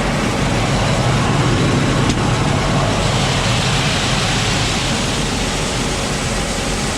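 Grain auger running steadily, carrying shelled corn, a loud even mechanical rumble mixed with the rush of the grain.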